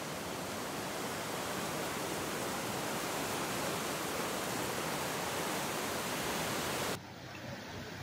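Flood-swollen, muddy stream rushing: a steady, even wash of water noise. About seven seconds in it cuts off abruptly and a fainter, duller hiss takes over.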